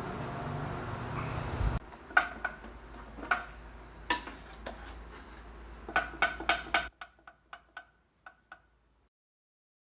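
Bathroom exhaust fan running with a steady whir and hum that cuts off suddenly about two seconds in. It is followed by scattered sharp, ringing metallic ticks, a quick run of them near the end, then fading ticks.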